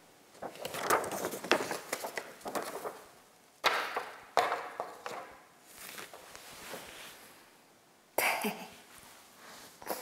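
Sheets of paper rustling and crackling as they are handled, in irregular bursts, with a few sudden louder noises: about three and a half seconds in, again just after, and near the end.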